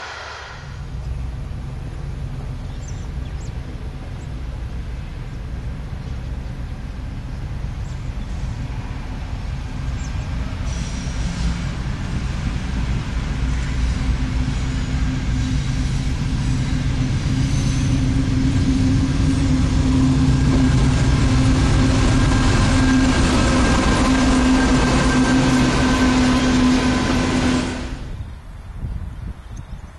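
Diesel locomotive approaching, its low engine drone growing steadily louder with a few steady tones on top, then cut off suddenly near the end.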